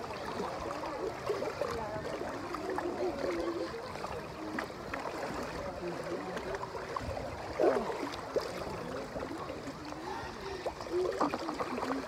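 Water sloshing and splashing in a water-park lazy river as people wade through it, with voices mixed in.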